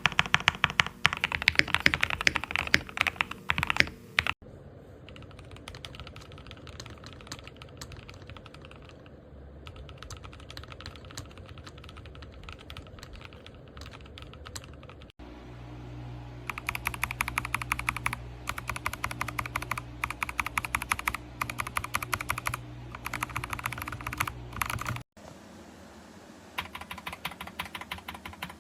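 Continuous fast typing on a mechanical keyboard with KTT Strawberry switches, a dense clatter of key presses. It is spliced from several takes that cut off suddenly at about 4, 15 and 25 seconds in. The stretch from about 4 to 15 seconds is quieter and duller, and a low hum lies under the typing from about 15 to 25 seconds.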